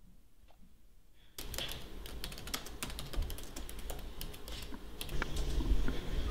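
A wall clock ticking faintly about once a second. About a second and a half in, fast typing on a Dell laptop keyboard begins: a dense run of quick key clicks that goes on to the end.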